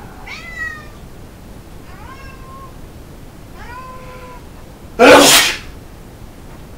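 A congested cat meows three times in short, pitched calls, then sneezes once loudly about five seconds in, during a sneezing fit.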